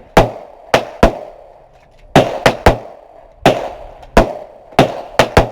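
Gunshots at a shooting range: about eleven sharp reports at uneven spacing, some in quick pairs and threes, each trailing off in a short echo.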